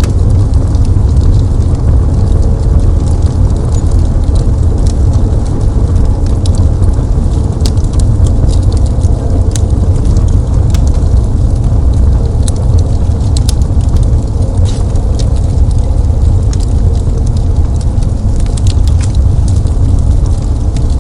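Wood fire burning in a fireplace: a steady low rumble with many scattered sharp crackles and pops.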